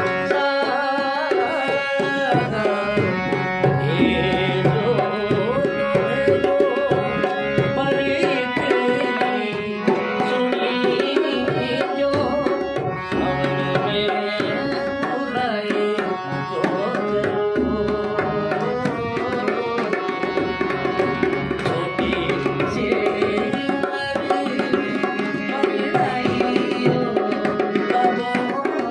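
A man singing a Rajasthani folk song, a daughter's farewell lament to her father, to harmonium chords and a steady hand-drum rhythm.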